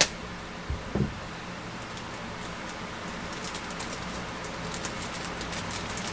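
Thick plastic packaging crinkling and crackling as it is cut and pulled open, with irregular crackles throughout and two dull knocks about a second in.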